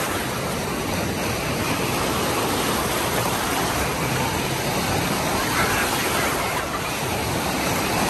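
Artificial waves in an indoor wave pool washing over the shallow tiled floor, a steady rush of splashing water.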